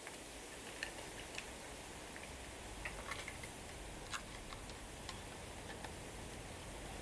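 Scattered light clicks and taps of small objects being handled, over a steady low background hum.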